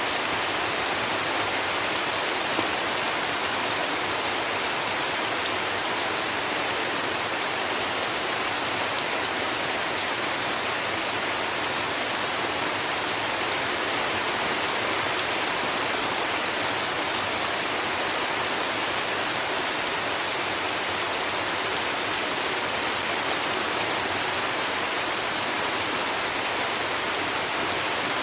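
Heavy rain falling steadily, an even hiss of rain with fine drop patter throughout.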